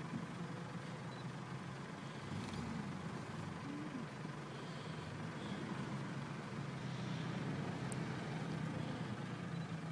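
Engine of an off-road 4x4 running steadily under load as it crawls up a steep, muddy slope, growing a little louder in the second half.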